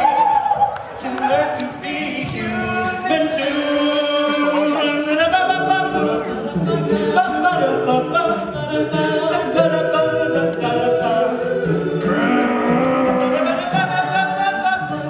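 All-male a cappella group singing in close multi-part harmony into handheld microphones, with no instruments. The sound is steady and full throughout.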